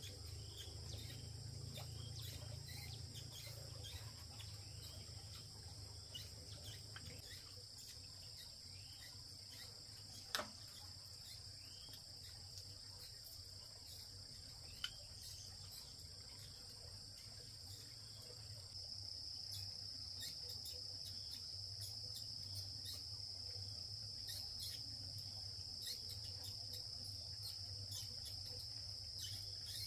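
Steady, high-pitched chorus of insects in forest surroundings, growing louder about two-thirds of the way through, over a low hum. Two sharp clicks stand out near the middle, about four seconds apart.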